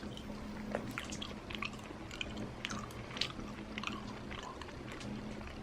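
A person chewing chicken close to the microphone: irregular mouth clicks and smacks.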